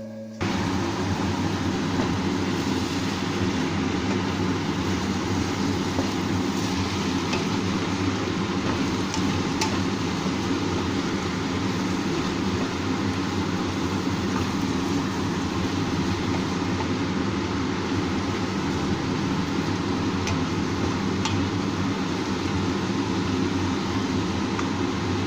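Steady whirring machine noise with a low hum, of a fan-like appliance. It starts suddenly just after the beginning, has a few faint ticks along the way, and cuts off abruptly at the end.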